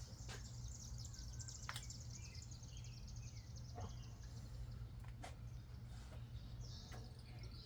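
Birds chirping now and then over a steady low rumble, with a few sharp clicks.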